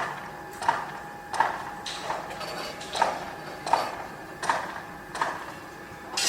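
Regular hammer blows at a construction site, about one every three-quarters of a second, each with a short ring. A steady hum runs underneath.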